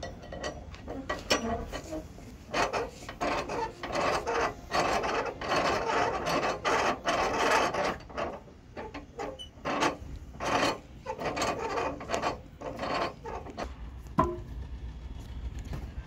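Sawmill trolley's screw clamp being cranked by hand, giving repeated gritty metal-on-metal rasping strokes of uneven length, with one sharp click near the end.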